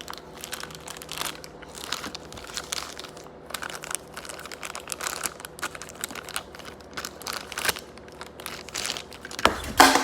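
Plastic packaging crinkling and rustling as a small toy is unwrapped by hand, in irregular crackles with a louder crunch near the end.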